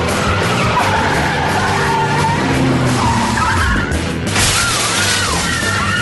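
Car chase: car engines and tyres screeching over background music, with a louder skid starting about four seconds in.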